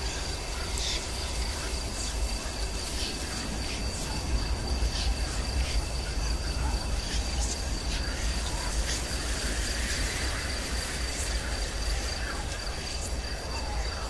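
Haunted-house horror ambience sound effect: a constant deep rumble under a steady high thin tone, with short faint clicks scattered through it.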